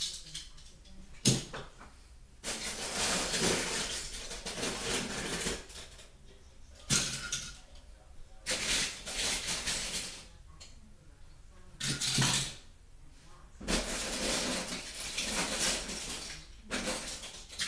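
Die-cast toy cars clattering and rattling against each other as they are handled, in repeated bursts of a second to about three seconds, with a sharp click about a second in.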